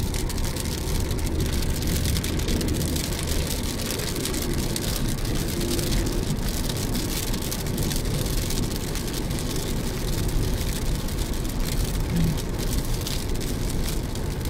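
Steady road noise heard inside a moving car on a wet highway: tyre hiss and a low engine rumble, with raindrops ticking on the windshield.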